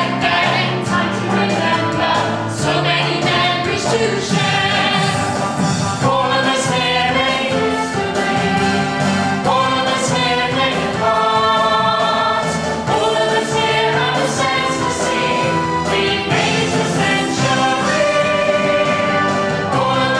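Several actors' voices singing a musical-theatre song together, held notes changing every second or so over a steady accompaniment.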